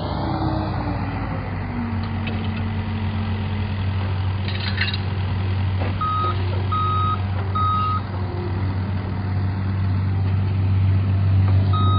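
A steady low engine drone, with a vehicle's reversing alarm giving three short beeps about halfway through and another near the end.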